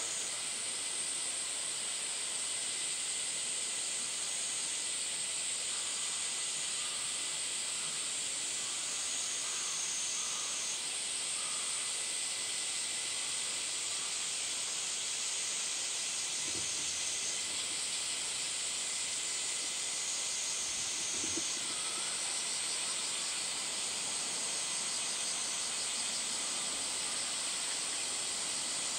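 Steady, high, hiss-like drone of a summer cicada chorus, with a thin constant whine running through it.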